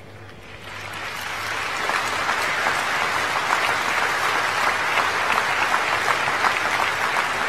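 Large audience applauding, the clapping building over the first two seconds and then holding steady.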